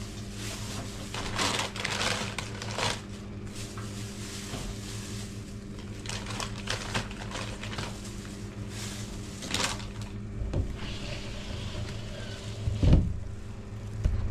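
A steady low hum with scattered rustles and clicks of handling, and a heavier knock near the end.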